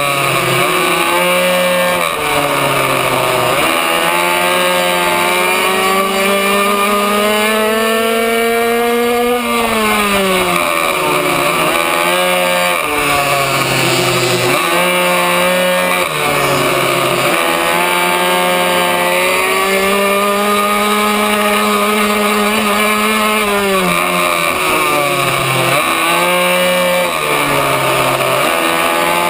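Racing minibike's small two-stroke engine at full throttle, heard close up from on board. Its high, buzzing pitch climbs steadily along each straight and drops sharply each time the rider brakes for a corner, a handful of times over the lap.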